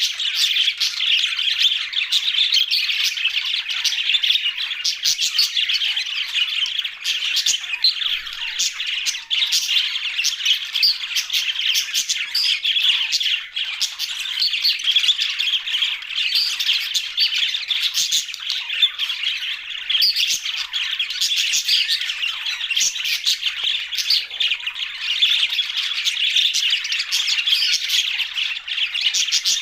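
A flock of budgerigars chattering continuously, a dense mix of warbling and sharp squawks and chirps from many birds at once.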